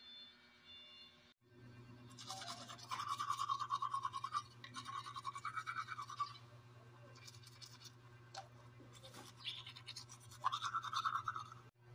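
Manual toothbrush scrubbing teeth in quick back-and-forth strokes, in several spells with short pauses between. A steady low hum runs underneath.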